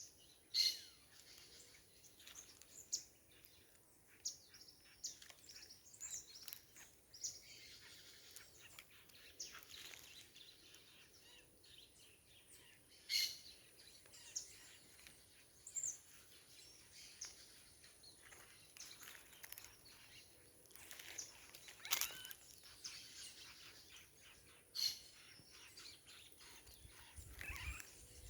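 Birds chirping and calling intermittently over a faint background, with many short high-pitched calls and a few louder sharp ones scattered through.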